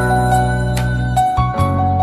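Background music: a soft, gentle instrumental with held melody notes over a steady bass and light percussion.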